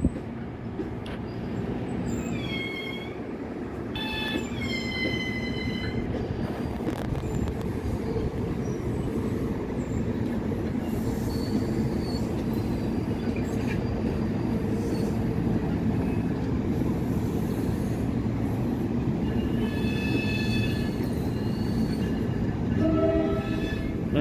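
NJ Transit double-deck passenger train rolling past with a steady rumble of wheels on track. High-pitched wheel squeal rises over it twice, falling in pitch a few seconds in and again near the end.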